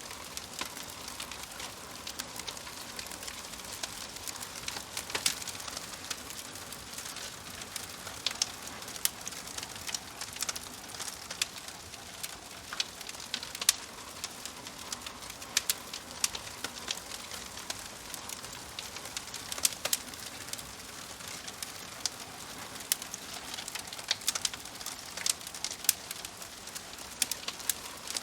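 Wood fire crackling in a fireplace: a steady soft hiss with sharp pops and snaps scattered irregularly throughout.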